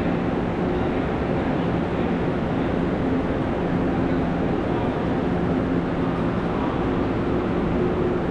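Taiwan Railways passenger train moving off along the station platform: a steady rumble with a low hum, echoing under the platform roof.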